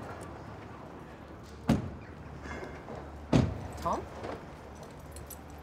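Car door being shut: two sharp thumps about a second and a half apart, the second the louder, over a steady low hum of street traffic.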